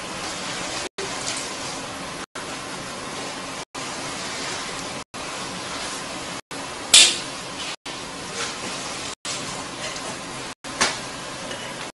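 Steady hiss of background noise, cut by brief dropouts about every second and a half. Two sharp knocks stand out, the louder about seven seconds in and a second near the end.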